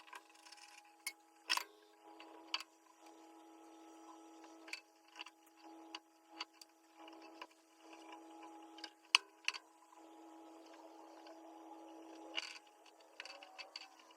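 Scattered light clicks and taps of hand work on an ignition switch and its wiring, with one sharper click about nine seconds in, over a faint steady hum.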